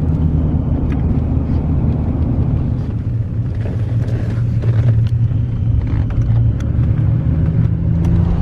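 Steady low drone of a car driving at road speed, engine and tyre noise heard from inside the cabin.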